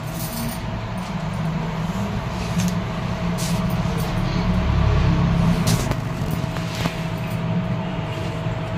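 Low engine rumble of a motor vehicle, swelling to its loudest about halfway through and easing off again.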